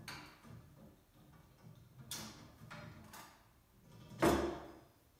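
Metal tube rails of a wheelbarrow frame being handled and fitted together, giving a few separate knocks and scrapes, the loudest about four seconds in.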